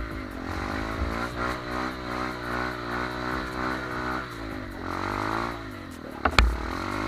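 Off-road trail motorcycle engine revving up and easing off again and again, its pitch rising and falling. A sharp knock about six seconds in.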